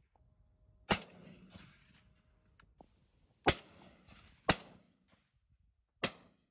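Four shotgun shots at decoyed pigeons and crows, each a sharp crack with a short tail; the middle two come about a second apart.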